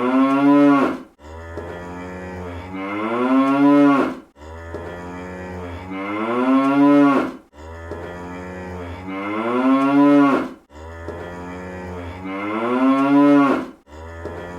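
Cartoon cow moo sound effect repeated in a loop, about every three seconds. Each moo starts low and steady, swells louder while its pitch bends up and then down, and cuts off sharply.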